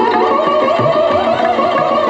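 Instrumental music: a melody that slides between notes, over a steady drum rhythm.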